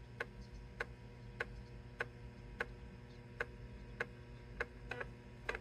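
USB 3.5-inch floppy drive ticking faintly as it accesses a disk: a short sharp click about every 0.6 seconds, with two close together near the end.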